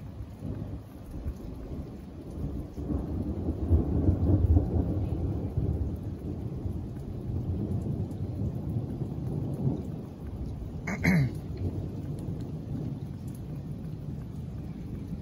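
Long rolling thunder rumble that starts suddenly, builds to its loudest about four seconds in and keeps rumbling, with rain falling throughout. A short, sharp sound cuts in about eleven seconds in.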